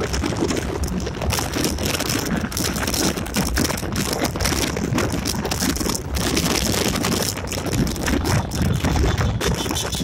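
Wind buffeting the microphone on a moving Yamaha Gladiator motorcycle: a steady rushing noise broken by irregular gusty thumps, with the bike's running noise beneath.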